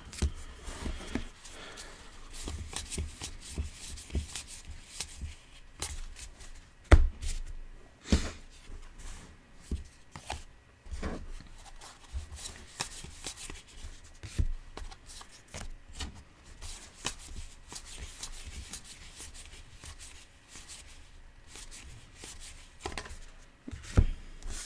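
Topps Allen & Ginter baseball cards being slid and flipped one by one by hand: a rustling of card stock broken by scattered sharp taps and clicks, the loudest about seven seconds in.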